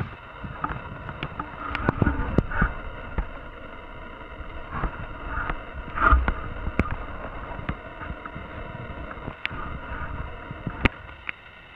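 Camera handling noise and footsteps while walking with a handheld camera: irregular knocks and rustles over a steady background hiss.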